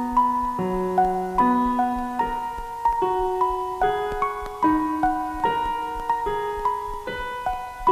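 Background piano music: a gentle melody of single held notes, a new note about every half second.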